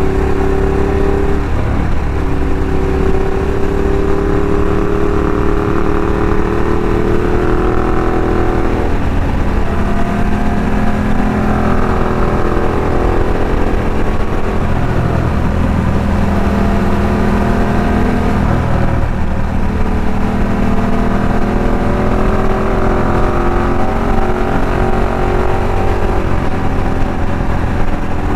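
Ducati Diavel's L-twin engine pulling under way at road speed, heard from the rider's seat. Its pitch climbs slowly and drops back a few times, about a second and a half in, around nine seconds and around nineteen seconds.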